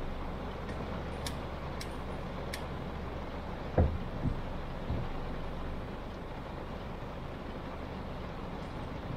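A car driving in heavy rain: a steady hiss of rain and wet tyres over a low rumble. Three dull thumps come about four to five seconds in, and a few faint sharp ticks come in the first few seconds.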